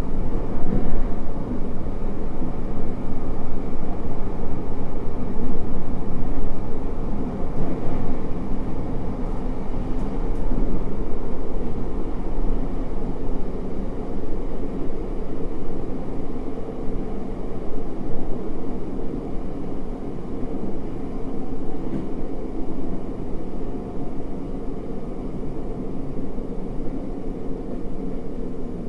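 Interior running noise of a JR Hokkaido 733 series 1000-subseries electric multiple unit under way: a steady rumble of wheels on rail, easing slightly toward the end.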